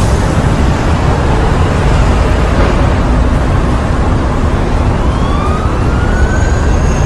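Big-city road traffic: a loud, steady rumble of engines and tyres, with a siren joining about five seconds in and rising slowly in pitch.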